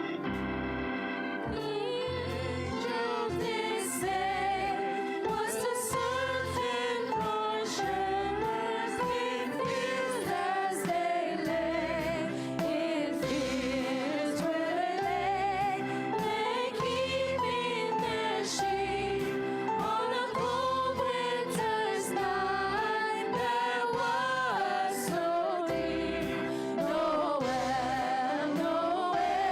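A choir singing a Christmas song with musical accompaniment, the melody rising and falling in long phrases.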